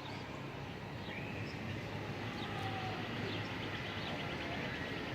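Outdoor ambience: a steady low background rumble with birds chirping, including a quick trill about three seconds in.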